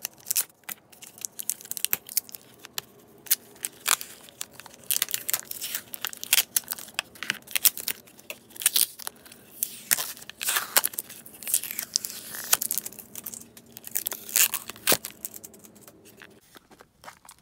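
Wrapping being torn open and crinkled by hand to unpack a small item: dense, irregular crackling and tearing.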